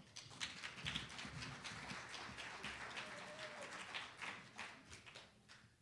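Light, scattered applause from an audience: many quick, irregular claps that thin out near the end.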